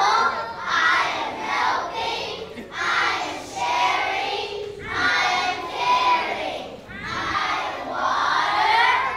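A group of pre-kindergarten children reciting an affirmation poem together in unison, calling out the lines in short chanted phrases.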